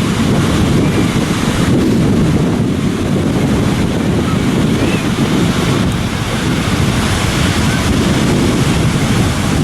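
Ocean surf washing steadily with wind buffeting the microphone, a loud continuous rushing noise heaviest in the low end.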